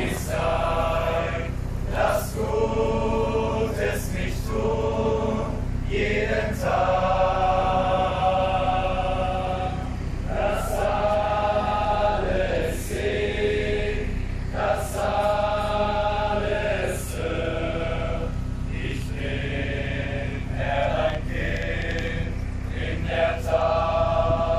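A large crowd singing a Christian song together, in long sung phrases with short breaks between them.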